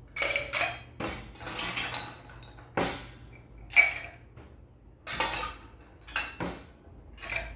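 Ice cubes being dropped into a drinking cup, clattering and clinking in a string of irregular bursts, the sharpest about four seconds in.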